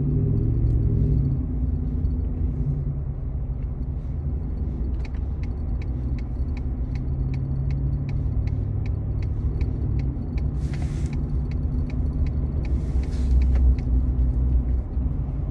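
Car's turn-signal indicator ticking evenly, about three clicks a second for roughly five seconds, over the steady rumble of engine and tyres heard from inside the cabin at highway speed. Two short hissing rushes follow near the end.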